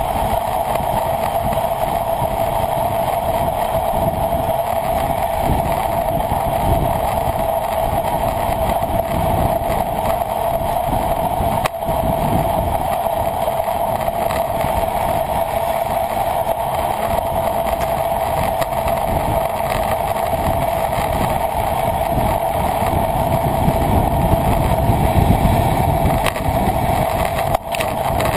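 Steady rushing wind noise on a moving camera's microphone, with a low rumble that swells and fades.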